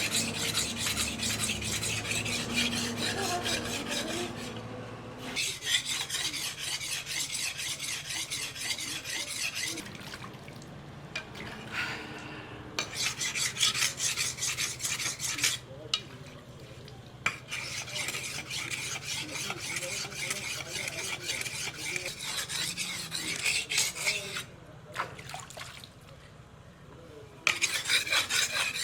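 Steel sickle blade being sharpened by hand with rapid, even back-and-forth scraping strokes. The strokes come in runs separated by short pauses, about five seconds in, from about ten to thirteen seconds, around sixteen seconds and from about twenty-four to twenty-seven seconds.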